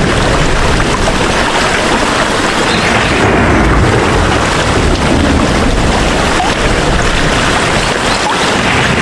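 Rain falling heavily, a steady loud hiss with a low rumble underneath.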